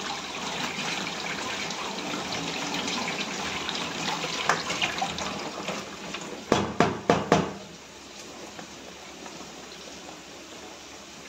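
Kitchen tap running into a steel bowl of cut potatoes as they are rinsed. About six and a half seconds in come four or five sharp clanks of the steel bowl, and then the water stops.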